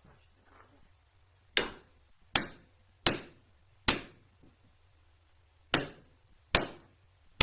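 Hammer blows, seven sharp strikes with a short ring after each: four at an even pace, a pause of about two seconds, then three more.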